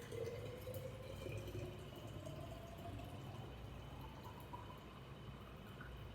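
Liquid pouring into a container, its pitch rising steadily as the container fills.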